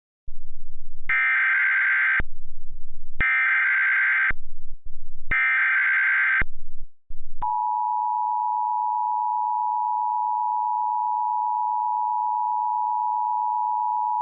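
Emergency Alert System tones: three bursts of about a second each of shrill data chirps (the SAME header coding the alert), with a low buzz in the gaps. About seven seconds in, the steady two-tone attention signal begins and holds, announcing a tornado warning to follow.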